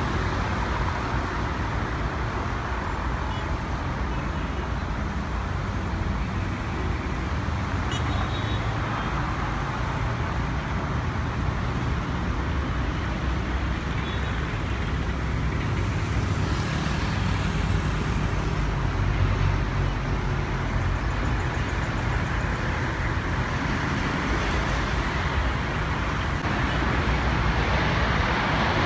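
Jet airliner landing, its engines a steady roar mixed with road traffic noise, with a brief louder wash of noise about 16 to 18 seconds in.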